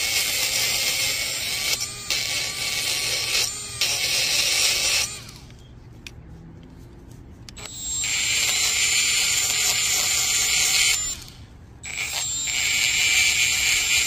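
Small cordless rotary tool running at high speed against a small engine's ignition coil, a high whine with the hiss of its bit scouring rust off the coil's iron core. It runs in three stretches, stopping briefly about five seconds in and again about eleven seconds in.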